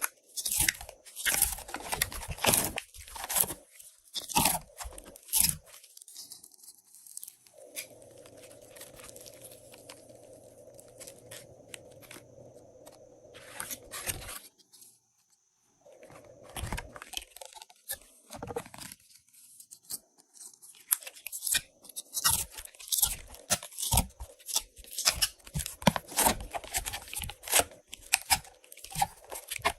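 Glossy slime being squeezed, stretched and kneaded by hand, giving dense, irregular sticky clicks and crackling pops. The clicks thin out to a faint steady hum for several seconds in the middle.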